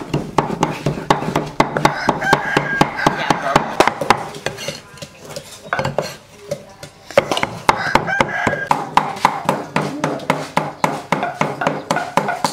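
Cleaver chopping and mincing meat on a thick wooden chopping block: a fast, steady run of sharp knocks, several a second, easing off for a couple of seconds a little before the middle.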